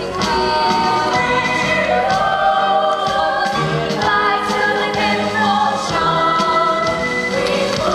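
A chorus of voices singing a musical-theatre number in harmony, continuous and full throughout.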